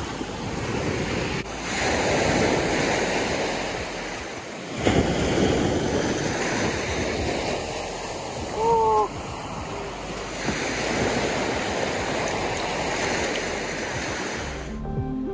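Small waves washing up onto a sandy beach, the surf swelling and falling back every few seconds, with wind on the microphone. A brief two-note call about nine seconds in is the loudest moment. Music starts just before the end.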